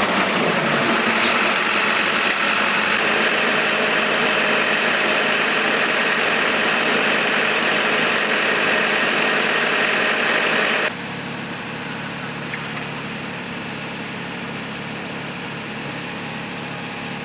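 Fire truck engine running steadily at close range, with a steady high whine over it. About eleven seconds in the sound cuts abruptly to a quieter, lower engine hum.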